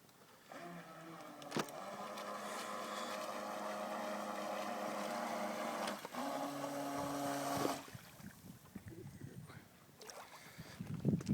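Electric motor of a toy RC boat running with a steady whine; its pitch steps up about six seconds in and it stops abruptly about eight seconds in. A single sharp click about a second and a half in.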